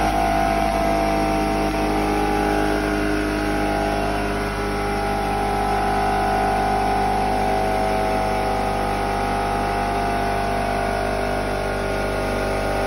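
Workshop machine's electric motor running steadily, a loud even hum with a whine that wavers slightly in pitch.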